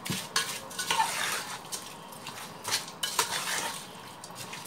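Metal spoon stirring a wet marinade of mutton, yogurt and fried onions in a metal pot, scraping and clinking against the pot, in two bouts.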